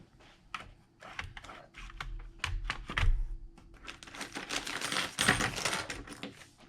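Small hard clicks and taps of tools and parts being handled on a phone, then a longer run of rapid scratchy clicking and scraping about four seconds in.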